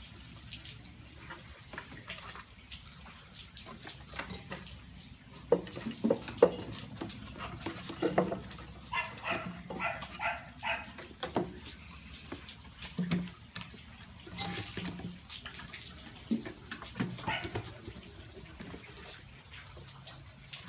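Puppies whining and yipping in short separate bursts, with scuffling and a few sharp knocks around six seconds in.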